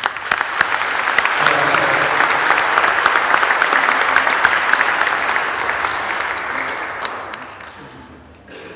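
A crowd applauding: dense clapping starts suddenly, holds steady, then dies away over the last couple of seconds.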